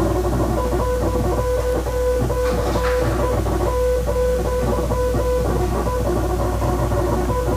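Morse code tone beeping in short and long pieces, dots and dashes, over background music.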